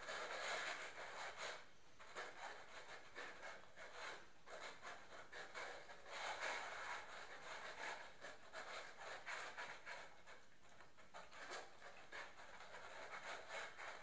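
Five-week-old golden retriever puppies eating dry kibble from plastic bowls: many small, irregular crunches, licks and clicks, with the bowls scraping on a tile floor.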